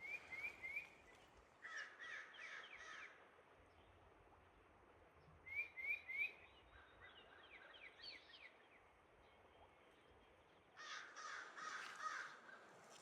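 Crows cawing in short series of several calls, repeating every few seconds, with another bird's quick rising notes mixed in; otherwise faint and quiet.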